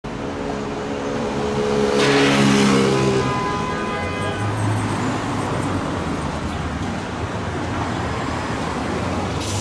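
City street traffic: a car passes close by with engine hum and tyre noise, loudest about two seconds in, followed by a steady low engine hum from idling and passing vehicles.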